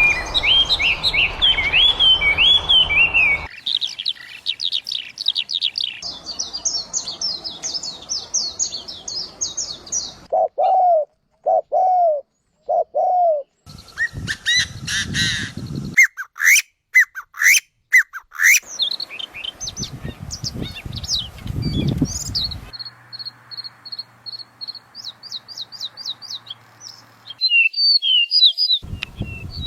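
A string of different songbirds singing and calling, each recording cut off abruptly and replaced by the next: rapid high chirps and trills, a run of four low slurred whistles about ten seconds in, and sharp repeated calls in the middle.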